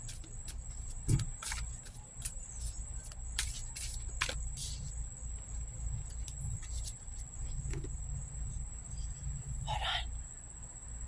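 Outdoor ambience: a steady high-pitched insect drone over a low rumble, with scattered sharp clicks, a thump about a second in and a short rustle near the end.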